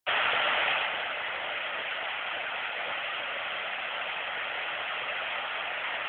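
Waterfall pouring over rocks into a pool: a steady rush of falling water, slightly louder in the first second.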